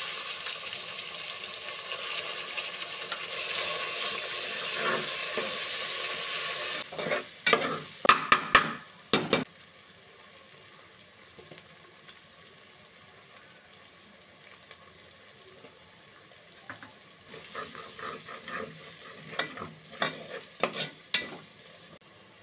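Sliced onions sizzling in hot oil in a pressure cooker, loudly for the first several seconds and then dying down. A metal spoon stirs and knocks against the pot in two spells: a loud cluster of clanks a little past the middle of the first half, and a run of lighter knocks near the end.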